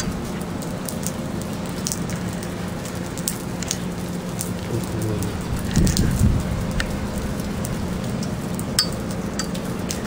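Wind buffeting and crackling on the camera microphone over a steady low hum, with scattered sharp clicks and a heavier gust or bump about six seconds in.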